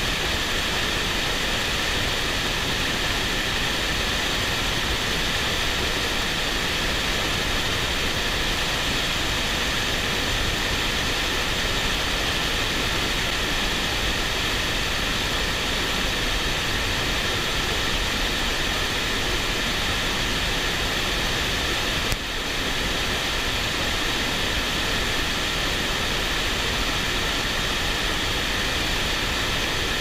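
Steady rushing of a mountain stream's flowing water, with one brief dip about two-thirds of the way through.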